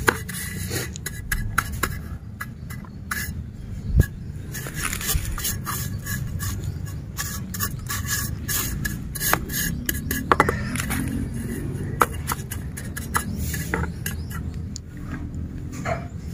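A small garden trowel scraping and scooping rice-husk planting mix in a plant pot: scattered clicks and rustling crackles, with a single sharper knock about four seconds in.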